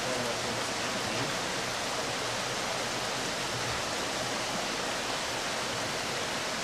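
Steady rush of water flowing through stacked flow-through hatchery incubator trays, each tray fed from the one above it.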